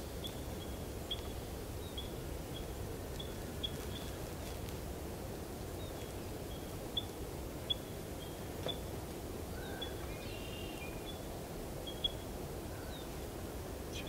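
Quiet rural outdoor ambience with a low steady background. A faint high chirp repeats about twice a second, a short run of higher calls comes about ten seconds in, and a few soft clicks are heard.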